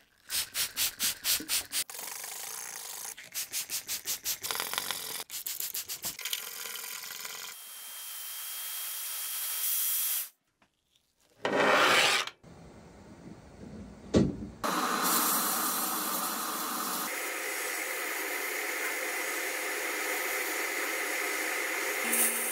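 Rapid, rhythmic scraping strokes, about five a second, as a scraper and brush work rust and grime off a steel guillotine blade. After a brief gap, a steady hiss of compressed air from a sandblasting cabinet fills the second half.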